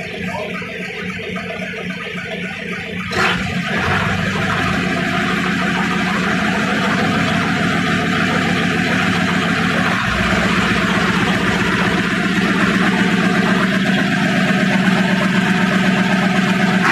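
An engine running steadily with a fast, even beat. It gets louder about three seconds in and keeps rising slightly after that.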